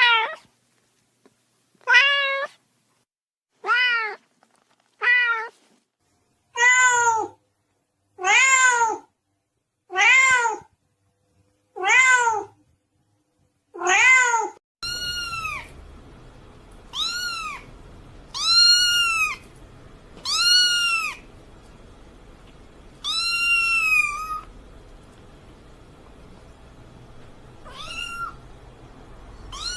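Domestic cat meowing repeatedly, about nine rising-and-falling meows every second and a half or so. About halfway in, a different recording starts: higher-pitched meows over a steady background hiss and hum, with one longer drawn-out meow near the two-thirds mark.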